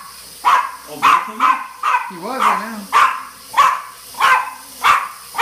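Small dog barking over and over at a toy quadcopter drone hovering above it, about two sharp barks a second.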